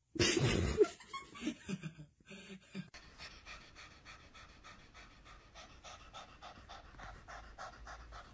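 Cat panting through an open mouth, a quick, even run of short breaths about three a second. It follows a louder, unclear stretch of sound in the first three seconds.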